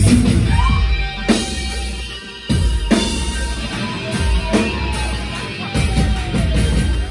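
Live rock band playing the final bars of a song: distorted guitar, heavy bass and hard drum hits, with a long held guitar tone over the top. The music stops abruptly at the very end.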